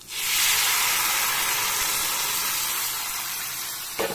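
Loud hiss and sizzle of chicken curry poured into hot gingelly oil with fried shallots and mustard seeds in a kadai. The hiss starts suddenly and slowly fades, with a couple of clinks near the end.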